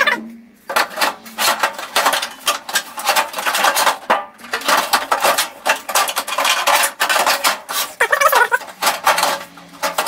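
Sheet-metal outer cover of a microwave oven being lowered, slid and pressed back into place over the chassis: a run of irregular metallic rattles, scrapes and clanks.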